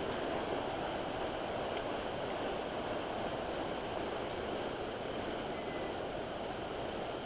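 Steady rushing outdoor noise with no clear single source.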